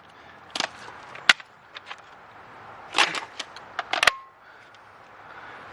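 A series of sharp clicks and knocks, the loudest about a second in and again around three and four seconds in, as cordless impact drivers and sockets are handled and set down.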